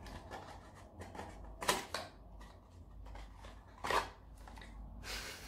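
A small cardboard box being opened by hand and a sample packet slid out of it: light rustling and scraping with a few short, sharper clicks, the loudest about 1.7 s and 4 s in and a brief rustle near the end.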